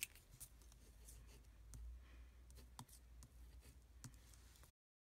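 Ballpoint pen writing on a paper sticky note: faint scratching with a few small taps of the pen. The sound cuts out abruptly near the end.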